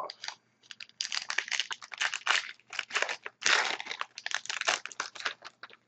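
A trading-card pack's wrapper crinkling and crackling as it is torn open and handled, a dense run of crackles from about a second in until just before the end.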